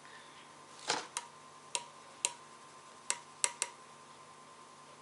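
Metal mesh sieve being tapped and knocked to sift flour: about seven sharp metallic clicks, irregularly spaced, between about one and four seconds in.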